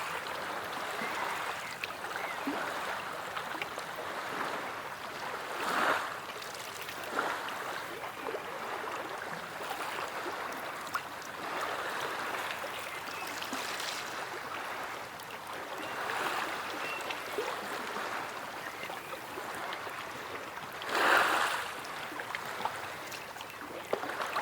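Sea waves washing on the shore: a steady wash of water that swells twice, about six seconds in and, most loudly, near the end.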